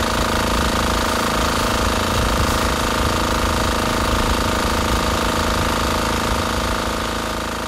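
Engine-driven water pump on a fire-fighting water tanker running steadily, with a steady hiss from the high-pressure water jet; it fades out near the end.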